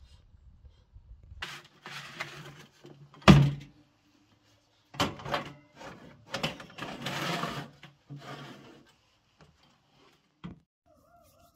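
A metal baking tray clattering and scraping as it is loaded onto the rack of a Luxell countertop electric oven, with one loud clunk early on and longer scraping stretches as the tray slides in. The oven door shuts with a short click near the end.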